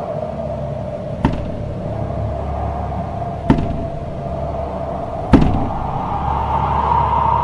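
Heavy bangs on a wooden door: three thuds about two seconds apart, the last the loudest. Underneath runs a steady droning music tone that rises in pitch near the end.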